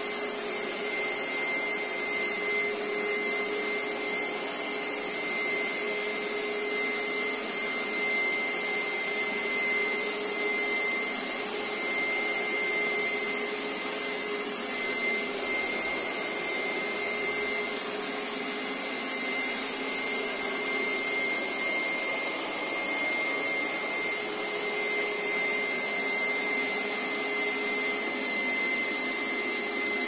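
Hoover SteamVac Dual V carpet cleaner running steadily, its suction motor pulling cleaning solution back out of the rug. A steady high whine sits over the rush of air.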